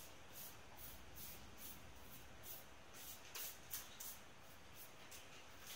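Faint chewing of a mouthful of taco: soft, wet mouth clicks and smacks a few times a second, with a couple of louder ones a little past the middle.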